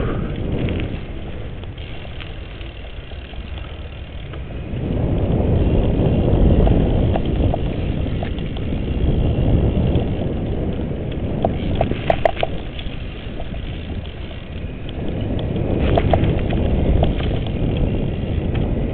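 Mountain bike ridden at speed: a steady low rumble of tyres and wind on the bike-mounted microphone, growing louder about five seconds in, with a few brief rattles around twelve and sixteen seconds in.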